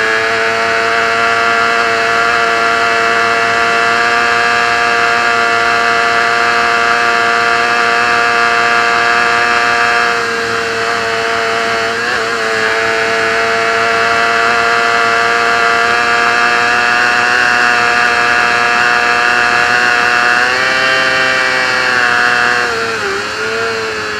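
Racing motorcycle engine heard onboard, held at high, nearly steady revs under full throttle. The pitch wavers briefly about halfway through, then drops and climbs back near the end as the rider eases off.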